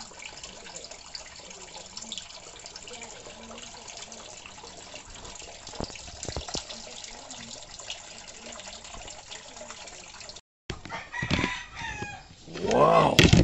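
Water pouring from a garden hose onto the tiled floor of a tank of live mud crabs, a steady trickling splash that cuts off about ten seconds in. A louder call with a bending pitch follows near the end.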